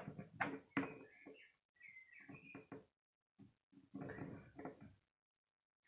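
Faint clicks and short high squeaks of plastic Lego bricks being pressed together and handled, coming in scattered bursts with brief silent gaps.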